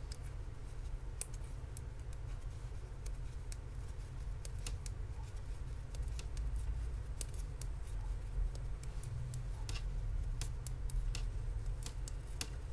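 Metal knitting needles clicking and tapping against each other as stitches are purled, in irregular light clicks about one or two a second, over a low steady hum.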